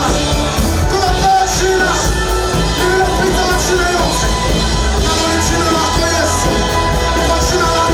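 Worship song: singers holding sustained notes over a steady bass line and instrumental backing.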